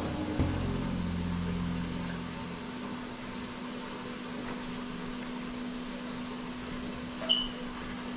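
Steady low electrical hum with even hiss from a running room appliance, as the last of the background music fades out in the first two seconds. A brief high-pitched chirp sounds about seven seconds in.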